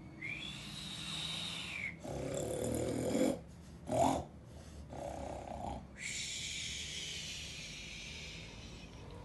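A man snoring in his sleep: slow rasping breaths in and out, each about two seconds long, with a short snort about four seconds in.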